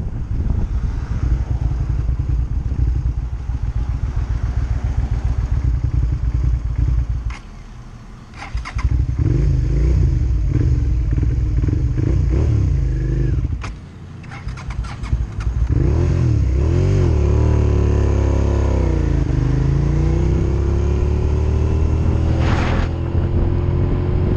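Motorcycle engine misbehaving in traffic: it runs, drops out abruptly twice with sharp clicks around each drop, then comes back revving up and down and pulls away in a long rising pitch. The rider blames the rough running on having just washed the bike.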